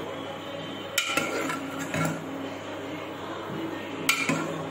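A metal spoon clinking and scraping against a cooking pot of chole, with sharp clinks about a second in, at two seconds and near the end.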